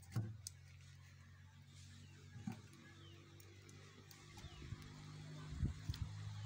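A steady low hum, with a few light knocks from cookware being handled at a small charcoal stove: one just after the start, one about two and a half seconds in, and a short cluster near the end.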